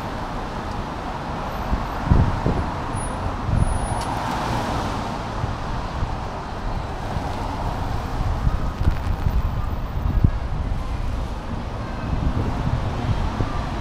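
Street traffic passing on a wet city road, with wind gusting on the microphone in low thumps. A vehicle swells past about four seconds in.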